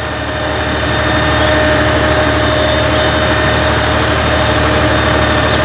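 Tractor diesel engine running steadily as it pulls a seeding and tillage rig, heard from inside the cab, with a low hum under a steady whine.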